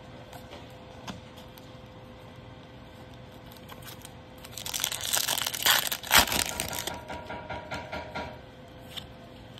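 Foil wrapper of a Bowman baseball card pack being torn open and crinkled by hand. It is a burst of crackling about halfway through that lasts a few seconds, with one sharp crack at its loudest.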